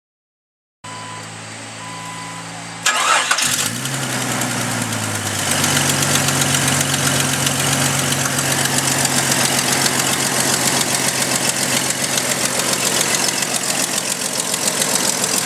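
1997 Jeep Cherokee XJ's 4.0-litre inline-six engine starts about three seconds in, after two short beeps, then settles into idle with a rapid, steady ticking. The tick is an exhaust leak from a blown-apart header gasket.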